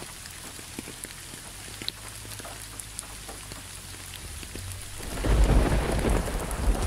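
Steady rain falling, an even hiss with scattered drop ticks. About five seconds in, a low roll of thunder swells up and keeps rumbling.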